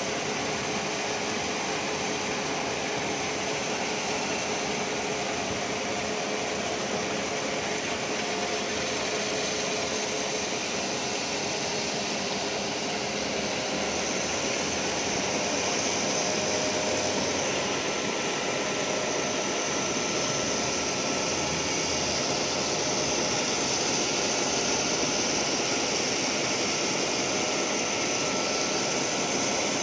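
Grinding wheel of a roll grinder working the flutes of a steel corrugated roll under a stream of coolant: a steady, loud hissing grind with the machine's hum beneath it, growing slightly louder about halfway through.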